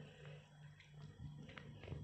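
Kitten purring faintly while being stroked: a low, steady purr with short breaks between breaths, and a couple of faint ticks near the end.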